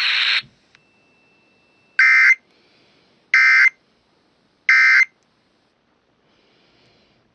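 A hiss of static cuts off, then three short digital data bursts about a second apart: the raspy warble of the EAS/SAME end-of-message code sent over NOAA Weather Radio to close the test.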